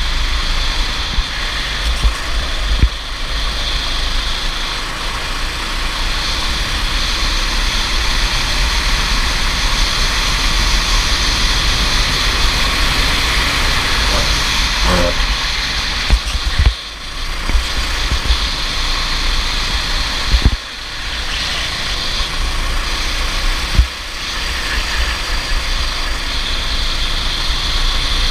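Go-kart engine running hard at racing speed, mixed with heavy wind rush on the onboard microphone. The level dips briefly three times in the second half.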